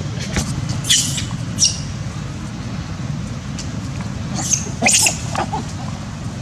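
Young macaques giving short high squeaks as they wrestle and chase: a couple around one to one and a half seconds in, and a denser cluster near five seconds. A steady low hum runs underneath.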